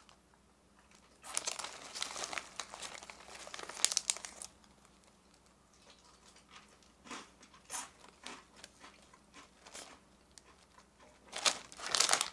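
Small clear plastic snack bag of hina arare rice-cracker balls crinkling as it is handled, in bursts: a long stretch from about one to four seconds in, a few short crackles in the middle, and another burst near the end.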